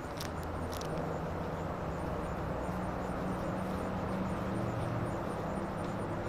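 A distant engine droning steadily, with two short sharp clicks in the first second.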